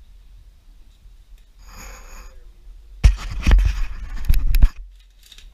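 Rotted wooden floorboards and debris scraping and knocking against a body-worn action camera as the wearer clambers down through a collapsed floor. A short rasp comes about two seconds in, then about a second and a half of loud scraping with sharp knocks.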